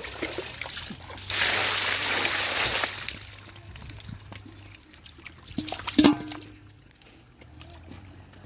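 Water splashing for about a second and a half, then a single sharp knock about six seconds in.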